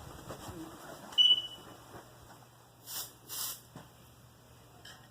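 Smoke alarm's piezo sounder giving one short, loud, high-pitched beep about a second in as the alarm is tested. About three seconds in there are two brief hissy noises and a faint click.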